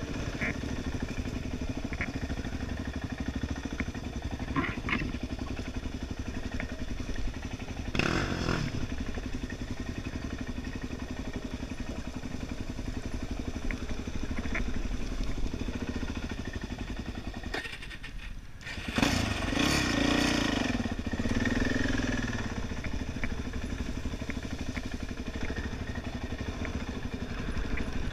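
Quad bike engine running as it rides a dirt trail, with a steady haze of wind and tyre noise and a few light knocks. About two-thirds through, the engine note drops briefly, then comes back louder as the throttle opens again.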